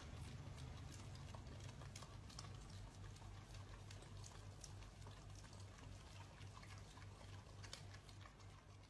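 Faint wet licking and lapping: two dogs licking an ice cream cone, many small irregular smacks over a low hum.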